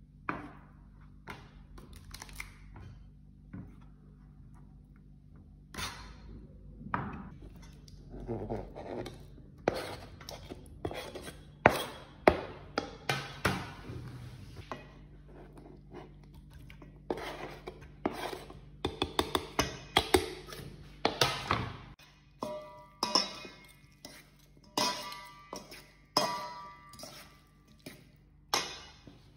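A knife knocking on a plastic cutting board, then a fork and spoon clinking and scraping against a stainless steel mixing bowl while a salad is stirred, as a run of irregular sharp knocks and clinks.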